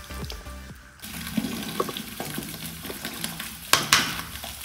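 Freshly opened zero-sugar orange soda being poured and fizzing, with two sharp clicks close together near the end.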